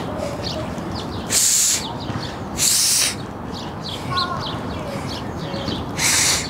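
Small birds chirping repeatedly over steady outdoor background noise, broken by three loud short hisses, about a second and a half, two and a half, and six seconds in.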